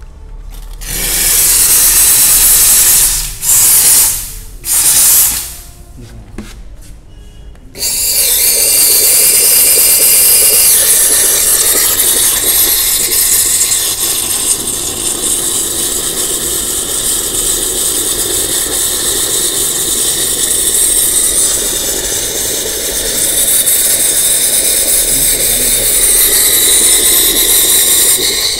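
Steam cleaner gun hissing as hot steam is blown through a Yamaha R15's radiator to flush out the dirt left after draining the coolant. Three short blasts, then a long steady blast from about eight seconds in.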